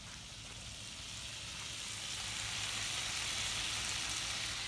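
Raw bacon strips beginning to fry in a skillet, a steady sizzling hiss that grows louder over the first three seconds or so.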